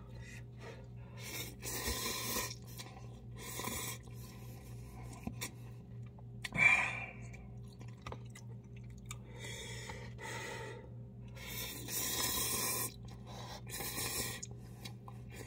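A person slurping and chewing instant cup noodles, in several separate slurps of about a second each, over a low steady hum.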